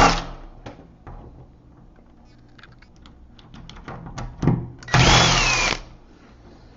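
Power drill-driver backing out the screws that hold an old deadbolt: a burst of motor whine that stops just after the start, and a second burst about a second long about five seconds in, its pitch rising and falling. Light clicks of handling between.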